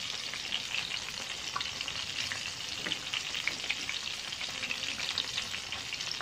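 Fish fillet pieces coated in flour and cornstarch frying in hot oil in a pan: a steady sizzle full of small crackles and pops.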